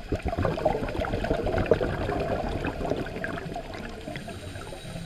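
Muffled underwater bubbling and crackling picked up through a GoPro's waterproof housing. It is loudest in the first two seconds and fades after about three.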